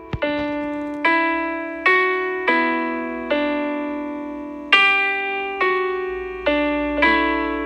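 Background music: a slow piano melody, notes and chords struck about once a second, each ringing and fading before the next.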